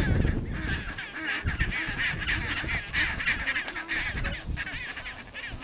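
Chinstrap penguin colony calling: many overlapping, repeated honking calls throughout, with a low rumble near the start.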